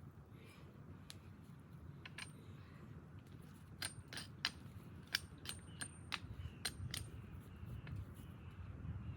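A series of sharp clicks and light metallic clinks, about a dozen, bunched in the second half, some with a brief high ring.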